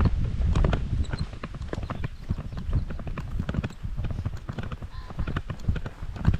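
Footsteps of a person walking on a path, a few steps a second, over a low rumbling.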